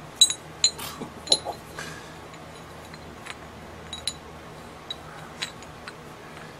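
Golden Analytical 10-ounce silver bars clinking against each other as gloved hands shift them: three sharp, ringing clinks in the first second and a half, then lighter taps and clinks, over a steady background hiss.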